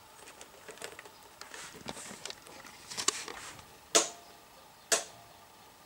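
Push-button switches on a TV test pattern generator being pressed, a string of light clicks, with two sharp, louder clicks about a second apart near the end as test patterns are selected.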